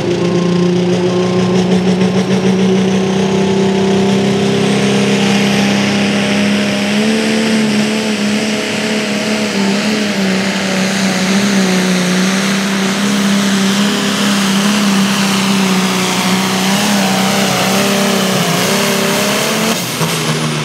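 A turbocharged 466 cubic inch diesel in a Light Limited pulling tractor runs flat out under the heavy load of a pulling sled. Its steady, loud note steps up in pitch about seven seconds in, wavers near the end, and falls away as the engine backs off just before the end.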